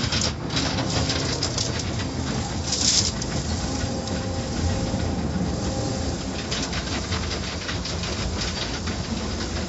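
Automatic car wash heard from inside the car: water and soap spraying and running over the windshield, with a constant rumble and many small slaps and patters against the body. A sharper hiss of spray comes about three seconds in.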